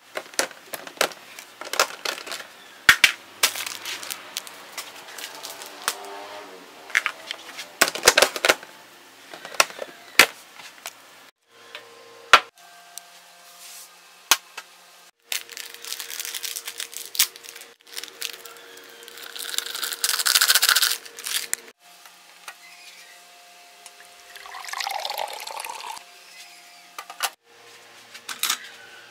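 Kitchen handling sounds while making a mug of hot chocolate drink: clicks and knocks of a plastic container lid, a ceramic mug and a spoon, over a faint steady hum. There is a short hissing stretch about two-thirds of the way through, and a pour of liquid near the end.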